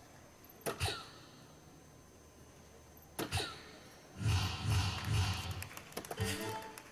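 Soft-tip darts striking an electronic dartboard: a pair of sharp clicks about a second in and another about three seconds in, each followed by a short falling electronic tone. Voices from the hall rise in the second half.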